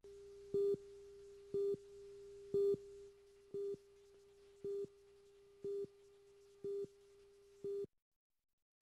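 Countdown-leader beeps: a steady mid-pitched tone with a louder beep of the same pitch once a second, eight beeps in all, cutting off suddenly near the end.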